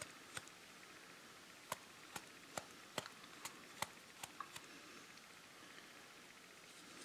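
Faint, irregular little ticks and scrapes of a cotton swab rubbing paint off a plastic model car body, over near-silent room tone; the ticks come mostly in the first four seconds or so and thin out after.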